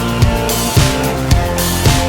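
Background rock music with drums, electric guitar and bass, the drum hits falling about every half second.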